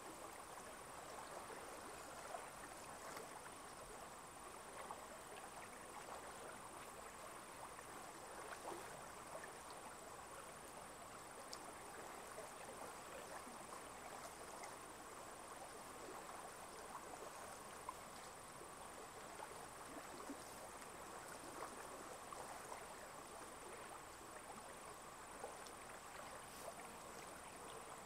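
Faint lakeshore ambience: small waves lapping gently with soft little ticks of water, under a thin steady high-pitched tone.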